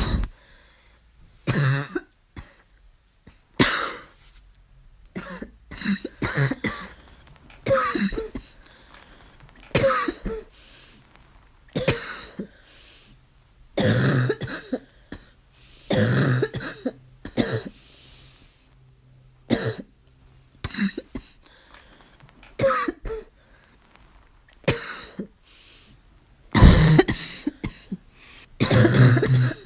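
A coughing fit of harsh, barking coughs, coming in bouts about every two seconds, some bouts two or three coughs in quick succession.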